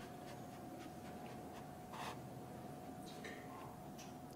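Baby aye-aye squawking once, loudly and sharply, right at the very end. Before that it is mostly quiet: a faint steady hum, a few tiny ticks, and one soft short rustle about two seconds in.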